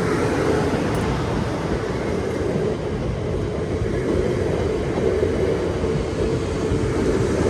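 Class 450 Desiro electric multiple unit running past at close range, a steady, loud rumble of wheels and motors on the rails with a constant hum underneath.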